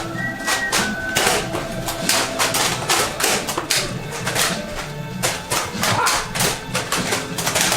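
Background music with a steady, quick percussive beat.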